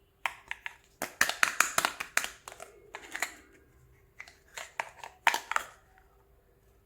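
Small plastic toy pieces being handled: a quick run of light clicks and taps, a pause, then a second run that stops about a second before the end.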